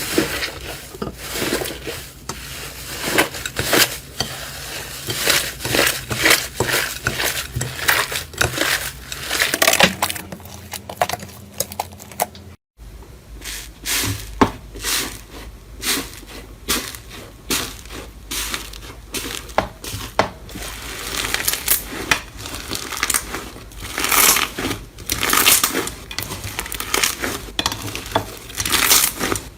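Close-up crunching and crackling as a crunchy ASMR material is squeezed and pressed, in quick irregular strokes. It cuts out briefly about twelve seconds in, then the crunching starts again.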